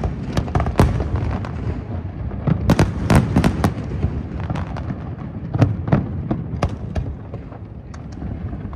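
Aerial fireworks going off: sharp bangs and pops in irregular clusters over a steady low rumble.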